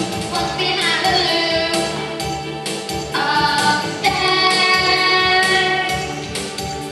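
A choir of children singing a song with a musical accompaniment, holding long notes.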